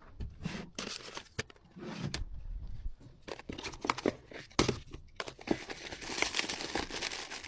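Packaging crinkling and rustling as small items are handled and packed, with scattered clicks and taps; a longer, denser stretch of crinkling near the end.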